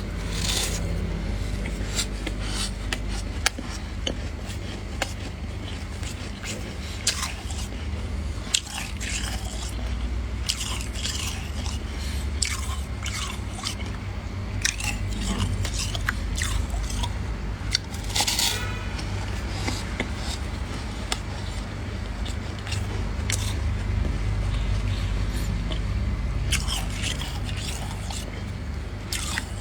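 Freezer frost being scraped off and bitten, with repeated sharp crunches and chewing over a low steady rumble.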